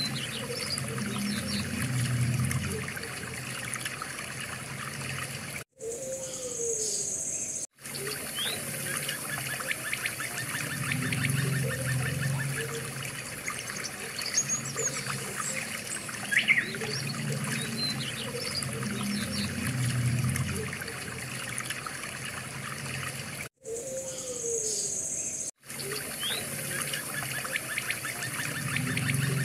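Nature ambience of trickling, burbling water with scattered short bird chirps. It drops out briefly twice about 6 and 8 seconds in, and again about 24 and 26 seconds in, where the same stretch repeats.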